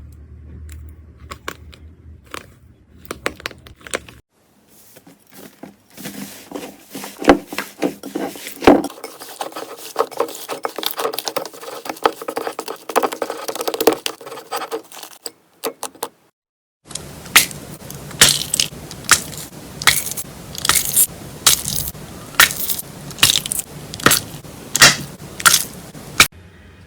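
Slime being squeezed, poked and stretched by hand, giving rapid sharp crackles, pops and scraping sounds, in three separate clips with brief silences between them; the loudest pops come in the last clip.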